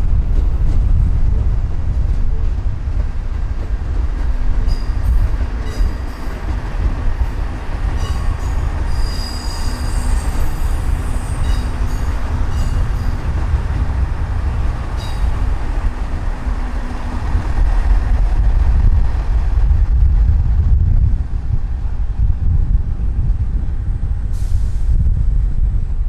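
Train running on rails with wheel squeal: thin, high squealing and ticking that comes and goes between about 4 and 16 seconds in. Heavy wind rumble on the microphone runs under it throughout.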